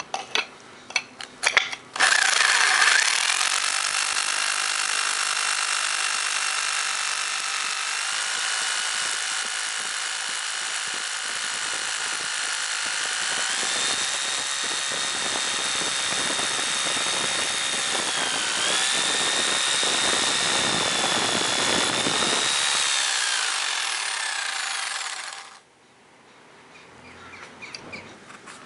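Einhell TH-RH 800E rotary hammer drilling into rock, running for over twenty seconds with a high motor whine that steps up in pitch twice, dips briefly, then falls and stops. A few knocks before it starts.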